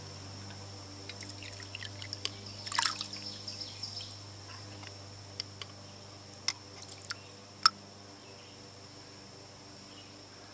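Engine piston on its connecting rod swished in a bucket of rinse water: water splashing about three seconds in, then a few sharp drips as the piston is lifted out.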